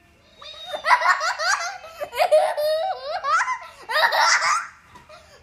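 A young boy laughing hard and high-pitched in three fits, each a quick run of rising and falling whoops, with short pauses between.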